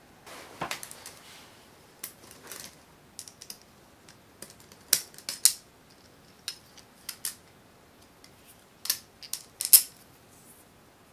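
Small sharp clicks, taps and rattles of fiberglass frame arms, screws and nuts being handled and fitted with a small hex screwdriver, coming in irregular clusters, the loudest about five seconds in and again near the end.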